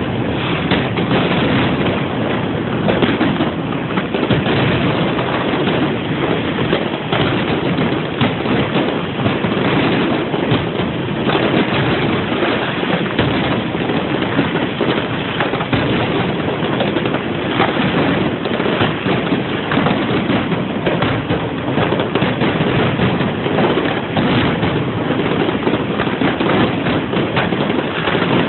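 Fireworks display: dense, continuous crackling and popping from many shells going off at once, with no break.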